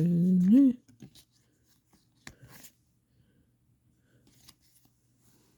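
A drawn-out vocal sound from a woman that rises in pitch as it ends, in the first second. Then a few soft clicks and faint rustles of trading cards being handled and set down.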